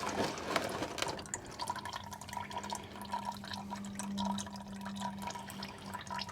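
Old engine oil draining from a V8 sump into a drain pan, a trickling stream with scattered drips. A faint steady hum runs underneath.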